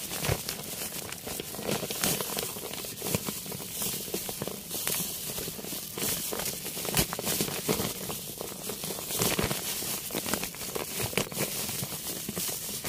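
Irregular crackling and rustling as a plastic-bag-covered hand digs through dry soil and tangled roots of mango ginger in a fabric planter bag, with many small clicks of roots and plastic.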